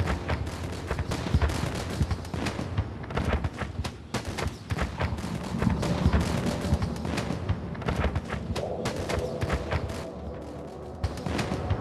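Dense, rapid series of blasts and cracks from cluster bomblets detonating in quick succession, like continuous gunfire, easing briefly near the end before picking up again.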